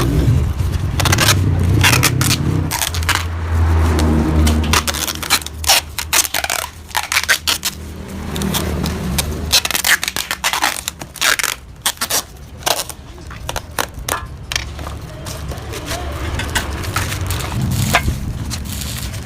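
Metal scraping with irregular knocks and clicks from work on a Yamaha RX-King exhaust muffler being hollowed out, over a steady low hum.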